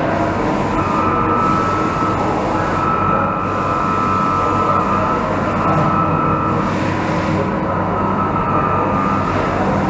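Steady running noise of machine-shop machinery: a continuous rumble and hum with a thin high whine that fades out briefly past the middle and comes back.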